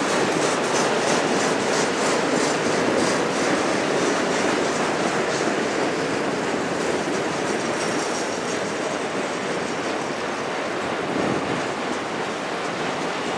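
Enclosed autorack cars of a freight train rolling past steadily, their wheels clicking over rail joints. The clicking thins out after the first few seconds, leaving a steady rumble.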